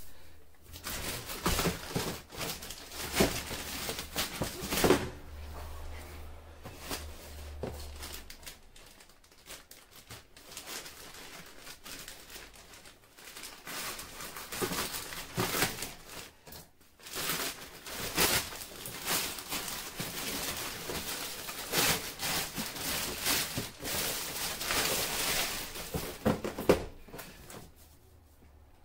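Plastic mailer bag of thin low-density polyethylene crinkling and rustling in irregular bursts as it is cut open with a kitchen knife and pulled apart, with sharper crackles now and then.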